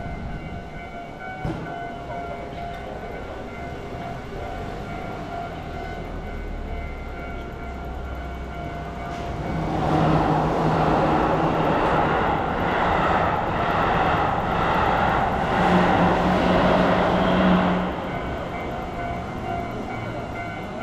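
A train passing. It grows louder about halfway through, holds for about eight seconds with a rattling clatter and a low steady drone, then drops back near the end.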